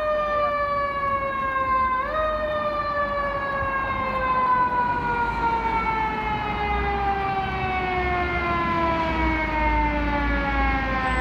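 A fire engine's mechanical siren winds up briefly about two seconds in, then winds down slowly, its pitch falling steadily for about nine seconds. A low rumble runs underneath.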